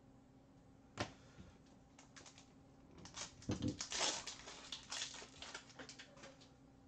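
Trading cards being handled and slid into rigid clear plastic top-loaders: one sharp plastic click about a second in, then a few seconds of plastic rustling and clicking.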